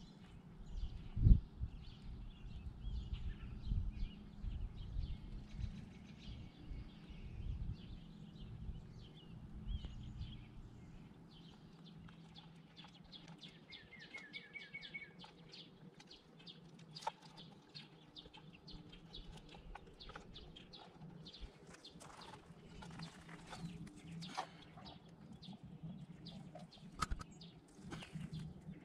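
Songbirds chirping on and off, with one quick trill of short repeated notes about halfway through. A low rumble of wind and road noise from the moving bicycle fades out after about ten seconds.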